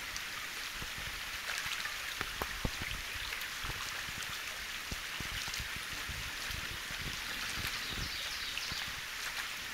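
Shallow stream running over rocks, a steady hiss of water, with scattered soft low knocks now and then.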